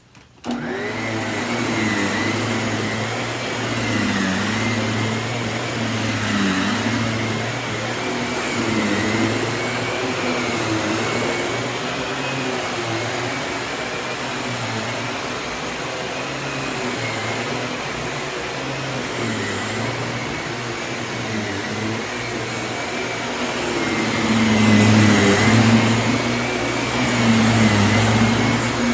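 Miele S194 Quick Step stick vacuum with its Power Plus electric brush head switched on just after the start and running steadily, its hum wavering a little in pitch. It grows louder near the end.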